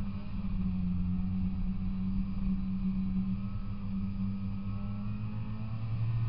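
Polaris Indy 340 snowmobile's two-stroke engine running steadily while riding across snow, rising a little in pitch and loudness near the end.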